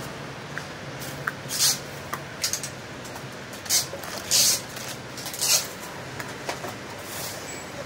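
Plastic bags and bubble wrap rustling and crinkling in about five short bursts, with a few light knocks, as rubber tyres and parts are handled and lifted out of a foam-lined kit box.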